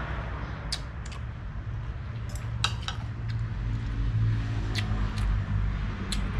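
A metal spoon and fork clinking a few times against a dish while eating soup, over a steady low rumble.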